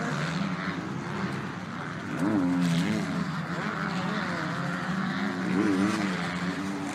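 Motocross motorcycle engines running on the track, revving up and dropping back a few times, about two seconds in and again near the end.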